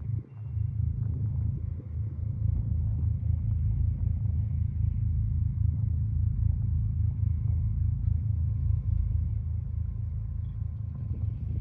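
A ferry's engine running with a steady low rumble, heard from aboard.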